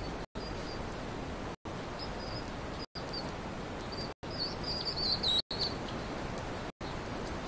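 Faint, short, high chirps from a baby hedgehog, several coming together in a cluster a little past halfway. Under them is a steady hiss that drops out briefly about every second and a quarter.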